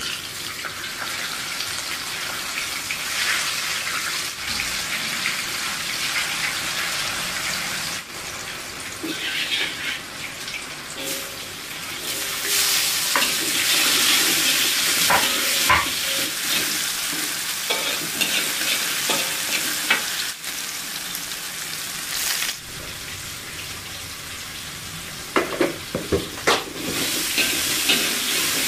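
Tofu frying in hot oil, a steady sizzle, with a metal spatula scraping and clinking against a wok as chilies are stir-fried. A run of sharp clinks comes near the end.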